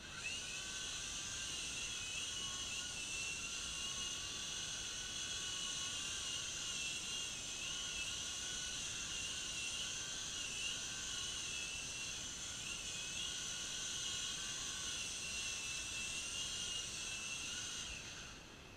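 Small electric motor and rotor of a U13A remote-control toy helicopter whining in flight. The high whine wavers up and down in pitch with the throttle. It comes on suddenly at the start and winds down and stops shortly before the end.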